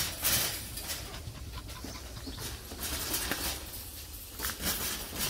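A dog panting, a string of irregular breathy puffs.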